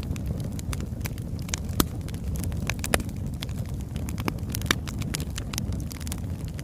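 Birchwood fire burning with a steady low rumble of flame and frequent sharp crackles and pops of the burning logs, a few louder snaps among them.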